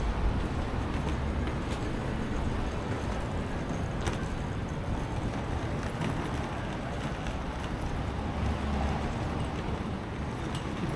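City street ambience: a steady low rumble of road traffic with a mix of street noise, and a faint sharp tick about four seconds in.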